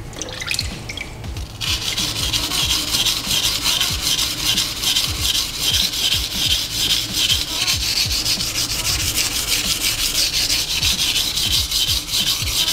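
Steel blade of a Nishida kurouchi petty knife scraping back and forth on a coarse 220-grit Naniwa whetstone in quick, even strokes under heavy pressure, grinding away steel to take out a chip in the edge. The strokes start about a second and a half in.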